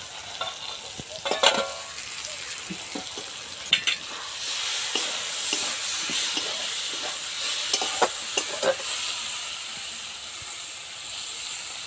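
Vegetable filling sizzling in a karai as a steel spatula stirs and scrapes it, with a few sharp metal clinks. Near the start the steel plate used as a lid clinks as it is lifted off, and the sizzle grows louder from about four seconds in.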